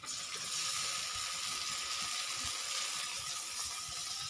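Tomato, garam masala and onion paste hitting hot mustard oil in a wok, sizzling. The sizzle starts suddenly as the paste goes in and then holds steady.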